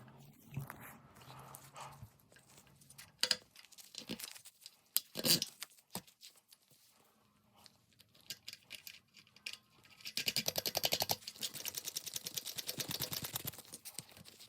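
A few sharp knocks of tools being handled, then about four seconds of rapid, even clicking from about ten seconds in, typical of a socket ratchet being worked on the toilet's tank bolts.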